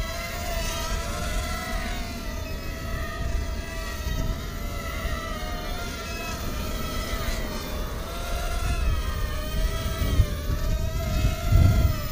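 Eachine Racer 130 mini racing quadcopter's brushless motors and propellers whining, the pitch rising and falling as the throttle changes. Wind rumbles on the microphone, strongest near the end.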